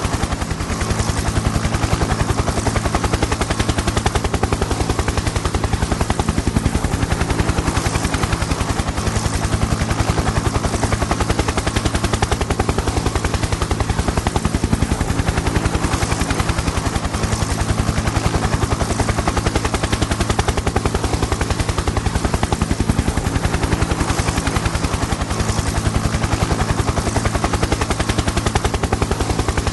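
Helicopter flying, its rotor blades chopping in a fast, even beat over a steady engine drone and turbine hiss.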